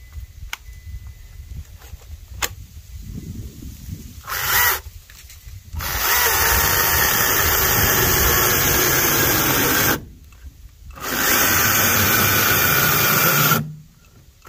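Greenworks GS110 battery top-handle chainsaw starting and stopping in bursts. A few light clicks come first, then a short burst about four seconds in. It then runs steadily for about four seconds, cuts out, runs again for about two and a half seconds and cuts out. The stopping is the saw stalling out under light load, which the owner cannot explain.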